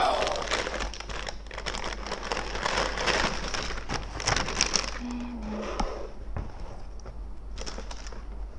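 Tissue paper rustling and crinkling in an open cardboard shoe box as it is folded back and sneakers are lifted out and set down, with many small irregular crackles.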